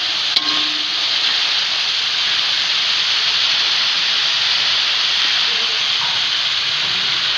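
Ground chili paste sizzling steadily as it fries in hot oil in a pan, with a single light click about half a second in.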